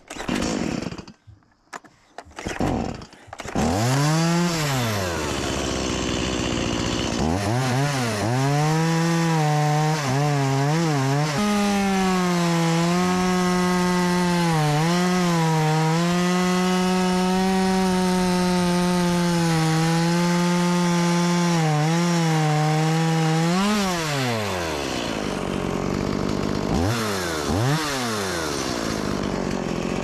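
Stihl MS180C two-stroke chainsaw starting about three seconds in and revved up and down a few times. It is then held at full throttle for about twelve seconds while cutting through a log, its pitch dipping now and then. It drops back to idle, with two quick revs near the end.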